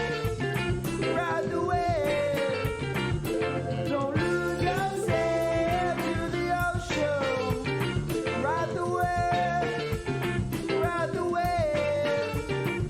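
Rock band music: drums keeping a steady beat under a melodic lead line that slides between notes.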